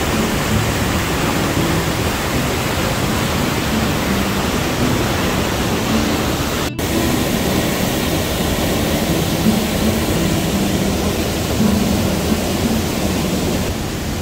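A tall waterfall's steady rush of falling water crashing into a rocky pool, loud and unbroken apart from a momentary dropout about seven seconds in.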